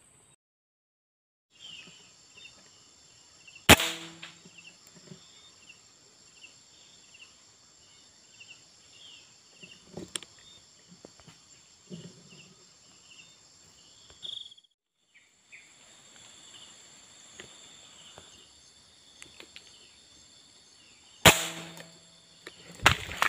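Air rifle shots: one sharp crack about four seconds in and two more close together near the end, over a steady high, pulsing buzz of insects.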